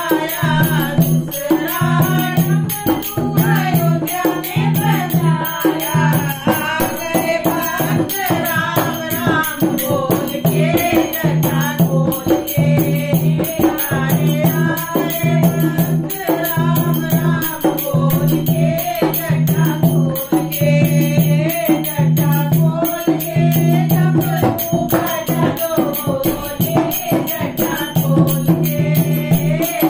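A woman singing a Hindi devotional bhajan to Shiva, accompanying herself on a dholak hand drum with a steady rhythm.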